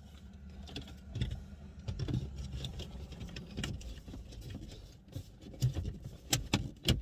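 Toyota Matrix's plastic dash trim bezel being handled and pressed into the dashboard around a double-DIN stereo: soft rubbing and knocks, then several sharp clicks over the last two seconds as its clips snap into place.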